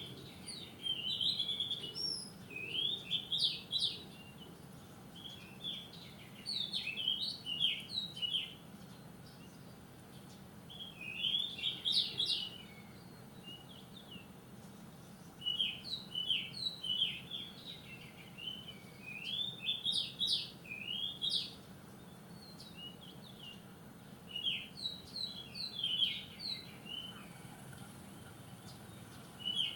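Wild songbird singing in repeated phrases of quick, high chirping notes, each phrase about two to three seconds long, separated by short pauses.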